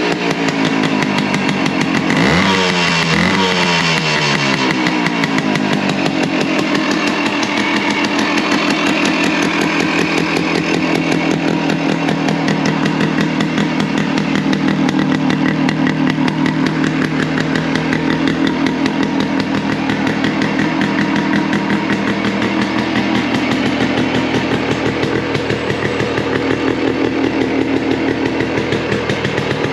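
A Suzuki Hustler 250's two-stroke single-cylinder engine running. It is blipped once about two seconds in, with the revs falling back over the next few seconds, then it settles into a steady idle with a fast, even beat.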